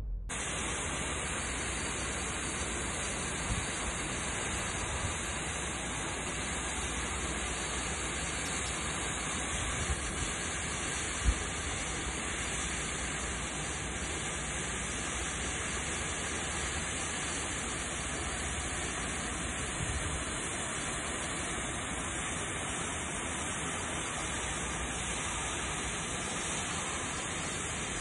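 Steady rushing of water gushing from a dislodged, leaking pipe, with one brief knock about eleven seconds in.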